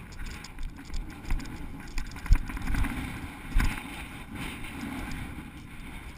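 Wind rumbling on a wearable camera's microphone while the wearer walks through dry crop stubble, with uneven footfalls and a couple of sharper thumps about two and three and a half seconds in.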